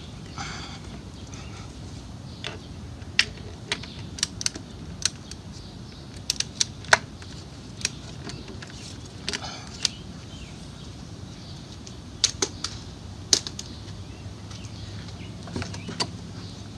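Torque wrench ratcheting on a Mercedes oil filter housing cap as it is tightened to 18 lb-ft: a string of sharp, irregular clicks, with a few short scrapes of the socket and cap between them.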